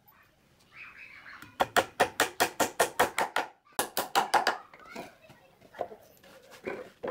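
Claw hammer driving nails into pine boards: two quick runs of even strikes, about six a second, then a few softer knocks as the boards are handled.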